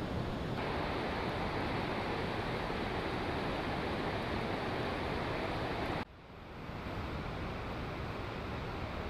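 Steady rush of falling water from a waterfall and stream. It cuts off suddenly about six seconds in, then swells back up a little softer.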